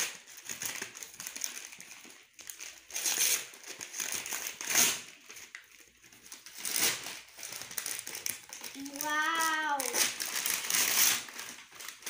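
Gift wrapping paper being torn and crinkled by hand as a box is unwrapped, in several separate rips. A short voice, falling in pitch, comes in about nine seconds in.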